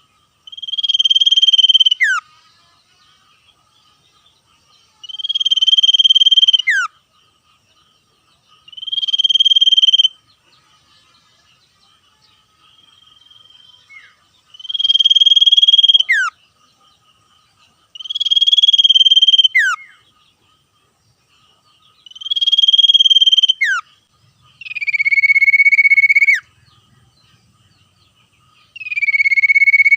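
Common iora singing its long trilling 'ngetir' song: eight trills of about a second and a half each, roughly four seconds apart, each ending in a quick downward slur, the last two lower-pitched. A faint steady high tone runs underneath.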